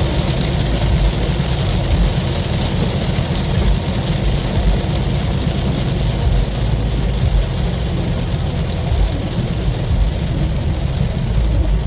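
Heavy rain drumming on a moving car with steady road and engine rumble beneath it, heard from inside the car. The sound is a constant hiss with no letup.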